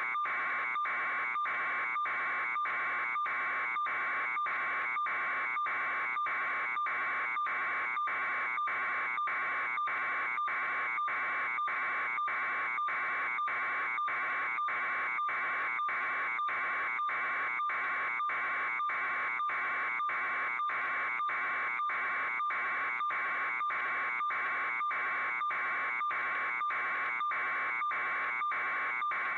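Electronic alarm buzzer sounding continuously, an even buzzing tone pulsing about twice a second without change.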